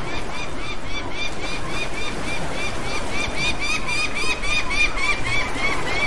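Gulls calling in a rapid, regular series of short arched cries, about four a second, over a steady background hiss.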